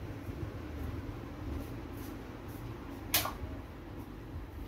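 A low steady hum with one sharp click or knock about three seconds in and a few faint ticks.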